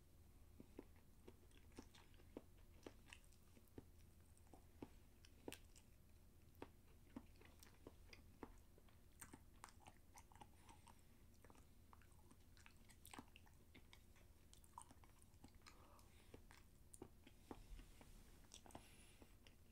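Faint chewing and mouth sounds of a person eating, with many small irregular clicks as he bites and chews.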